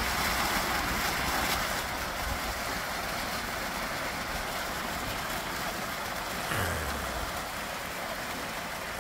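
Small bubbler fountain jets in a garden pond, splashing steadily: a continuous rush of falling water.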